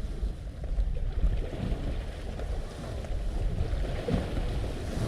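Wind buffeting the microphone in uneven gusts, over the wash of sea waves on the shore.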